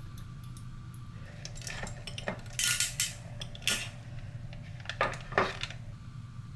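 A metal spoon clinking against a small dish and the glass olive-oil bottle being handled: a handful of short, scattered clinks and clatters from about a second and a half in until near the end.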